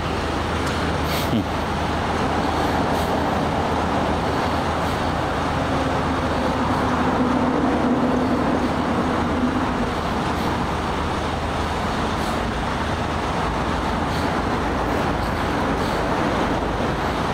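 Steady road traffic and vehicle engine noise under a constant low hum, with one engine note growing louder and then fading about halfway through, as of a vehicle passing.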